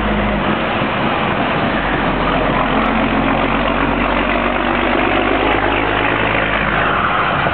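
Loaded 1999 Peterbilt log truck's Cat 550 diesel engine running steadily as the truck crosses a single-lane wooden bridge, with a dense, unbroken rumble.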